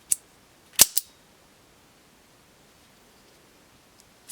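Heretic Knives Hydra single-action OTF automatic knife's mechanism clicking: one light click, then two loud sharp snaps about a fifth of a second apart, as the button is pushed and the charging handle pulled back to work the blade.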